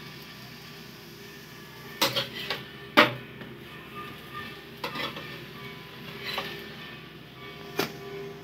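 Onion paratha frying in oil on a flat pan, with a low sizzle, while a spatula knocks and scrapes against the pan several times; the loudest knock comes about three seconds in.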